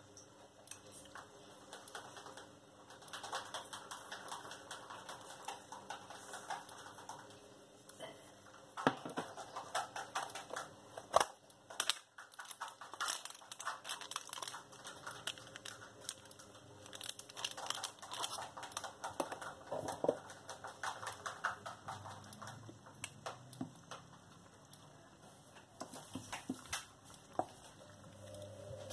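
Clear plastic bag crinkling and rustling as it is handled over a stainless steel pot, in dense crackly clusters, with scrapes and knocks of a wooden spoon stirring a stew in the pot. The loudest single sound is a sharp knock about a third of the way through.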